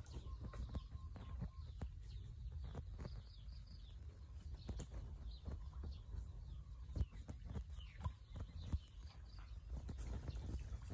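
Water dripping and splashing in small ticks from a cast net as it is hauled up out of a muddy canal, over a low wind rumble on the microphone and scattered short bird chirps.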